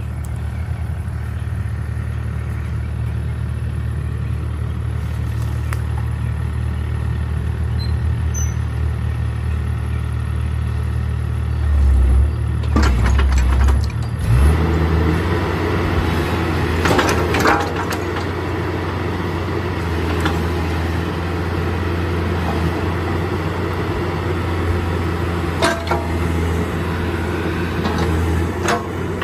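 Bobcat 331 mini excavator's Kubota diesel engine running steadily, its sound growing fuller about halfway through as the machine is worked, with a few sharp metallic clanks.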